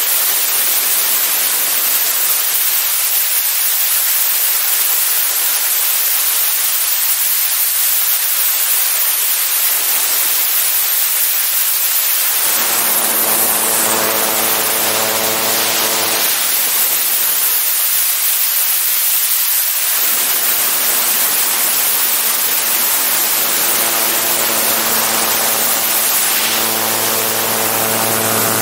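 Loud, steady rush of wind over a camera mounted on the outside of a gyroplane in flight. From about halfway in, the gyroplane's engine and propeller come through as a steady, even-pitched drone, dropping out for a few seconds and then returning near the end.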